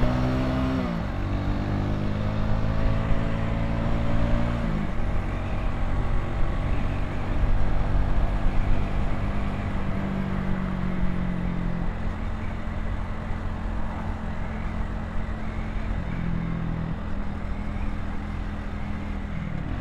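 Vitacci XMT 250's single-cylinder engine pulling hard, rising in pitch and shifting up twice in the first five seconds. It then runs steadily at cruising speed under heavy wind noise on the microphone.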